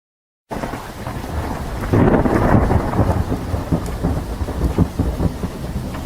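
Thunderstorm sound effect: rain with a deep rolling thunder rumble, starting about half a second in and swelling louder about two seconds in.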